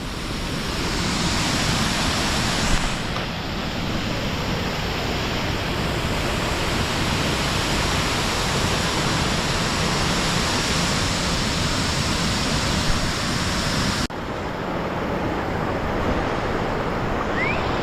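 A waterfall rushing: a steady, loud hiss of falling water. About fourteen seconds in it changes abruptly, and the sharp upper hiss drops away.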